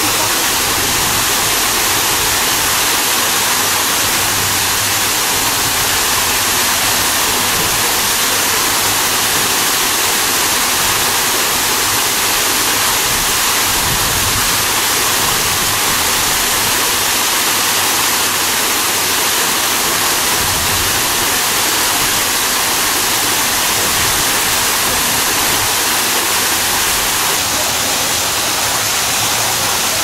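Waterfall cascading over rocks: a steady, even rush of falling water, with the hiss strongest in the high range.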